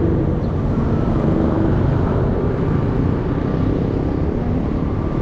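Steady engine and road noise of a vehicle travelling along a road, heard from on board.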